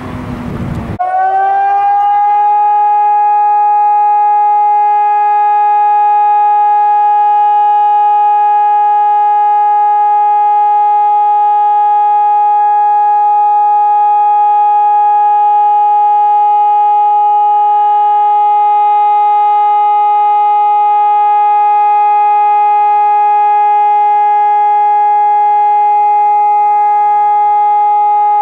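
ECN 1200 electronic high-performance civil-defence sirens sounding one loud, unbroken steady tone: the continuous all-clear (Entwarnung) signal of a German siren test. About a second in, the tone swells up to its pitch and then holds steady.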